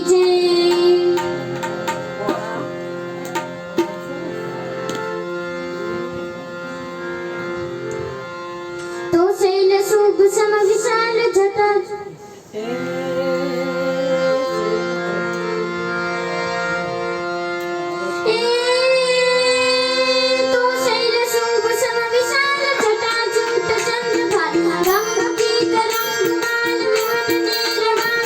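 Indian devotional music, a chhand: held accompanying notes that change step by step, with tabla, and a singer's voice that comes in briefly near 9 seconds and again from about 18 seconds.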